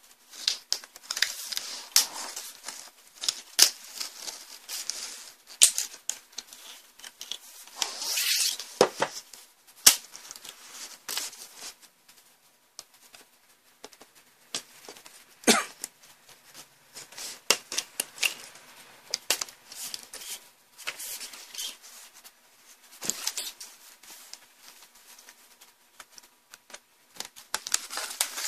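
Plastic latches of an LCD panel's black border frame clicking and snapping as they are prised loose by hand, with scraping and rustling of plastic against the metal frame in between; a few sharper snaps stand out.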